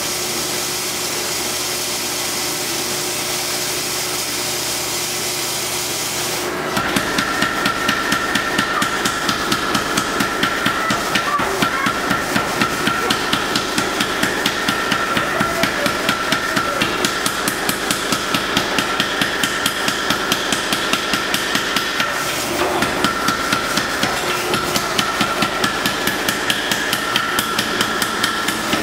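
A steady rushing noise, then a power hammer starts pounding a forge-welding-hot steel billet in a fast, even run of blows, about three or four a second. The blows pause briefly near the end, then carry on.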